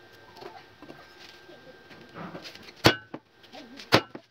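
Claw hammer striking a small steel part into a square steel-tube bracket: two sharp metallic hits about a second apart, each with a brief ring, after some light clatter of tools on the bench.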